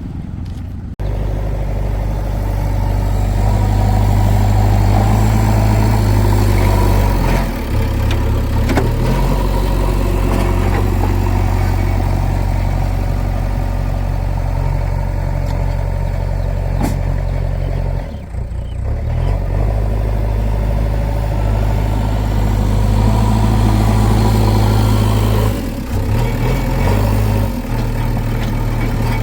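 Heavy diesel engine running at a steady speed, a deep low drone, with a few brief dips and shifts in its note.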